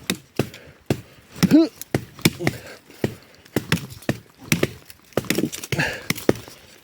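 Small hatchet chopping wood: a run of sharp blows, about two a second.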